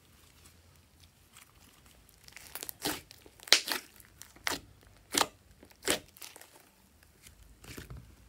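Glossy slime being pressed and stretched by hand, giving a series of sharp pops and crackles as trapped air bursts: quiet at first, then about seven loud pops spaced roughly half a second to a second apart from about two seconds in, with softer crackling near the end.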